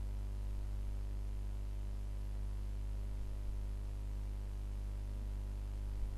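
Steady low electrical hum with a faint hiss, unchanging throughout.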